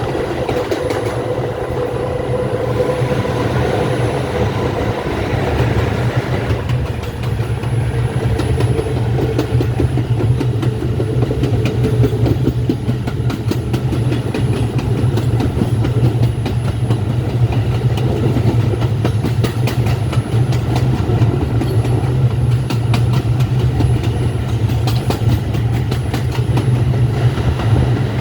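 R142 subway train running along the track, with a steady low rumble and rapid clicking of the wheels over the rails. A whine sounds in the first few seconds, then fades away.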